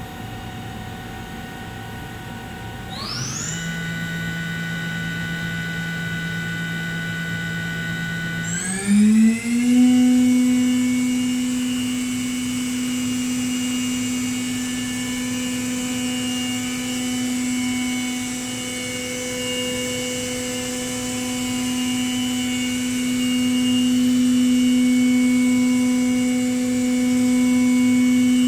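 Okuma Genos M560-V machining center's spindle spinning up with a rising whine about three seconds in and holding a steady pitch. About nine seconds in it ramps up again to a higher, louder steady whine and runs on.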